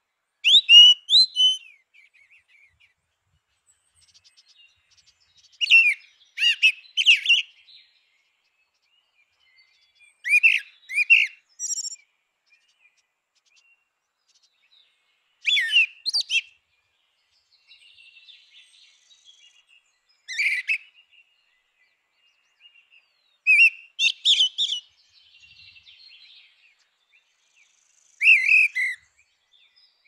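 Grey-winged blackbird singing: seven short whistled phrases of a few quick notes each, coming about every four to five seconds, with faint softer twittering between some of them.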